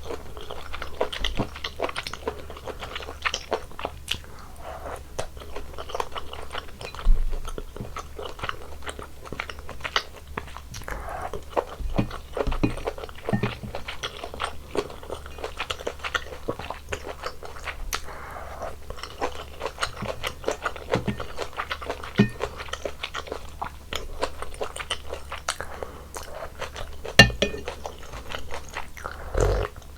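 Close-miked chewing and biting of mala tang, with irregular crunches and wet mouth clicks. There are two louder sharp knocks, one about a quarter of the way in and one near the end.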